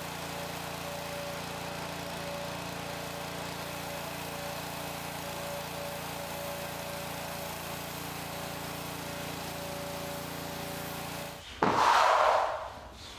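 Gas pressure washer with a Honda engine running at a steady speed while its wand sprays water onto a concrete floor. Near the end a much louder sound, about a second and a half long, cuts in.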